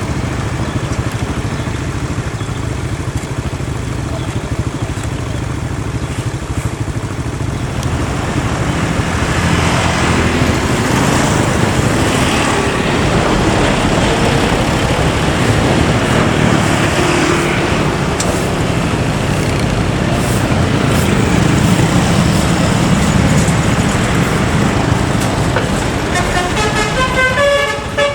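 Scania K410 bus running along the road, a steady engine and road noise that grows louder about a third of the way in. Near the end its basuri telolet horn starts playing a tune of stepping musical notes.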